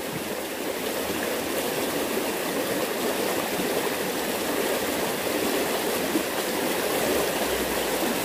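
Fast-flowing water running through a narrow irrigation ditch, a steady rushing noise.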